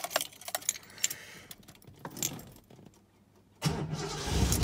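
Car keys jangling and clicking in the ignition of a 1972 Datsun Cedric, then about three and a half seconds in its carburetted engine turns over and starts, running and getting louder.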